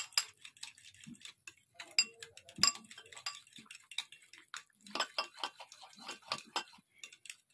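A utensil clicking and tapping irregularly against a bowl while a thick mayonnaise-and-cream sauce is stirred.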